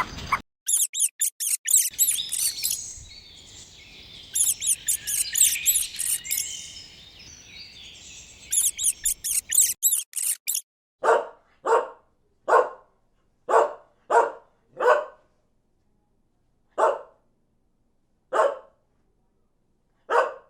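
High-pitched bird chirping, many quick calls in a row, for about ten seconds, cutting off abruptly. Then a dog barks about ten times, with single barks spaced out.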